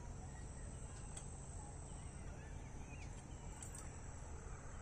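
Quiet field ambience: a steady high insect drone like crickets, with a few faint bird chirps and a couple of faint clicks.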